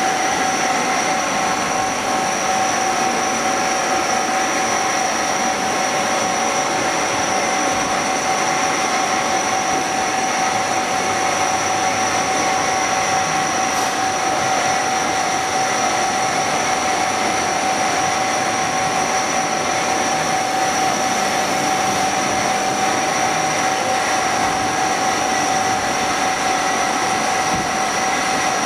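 CNC turning machine cutting a metal part under flood coolant: a steady, unchanging machine whine with a constant high tone, over the hiss of coolant spraying.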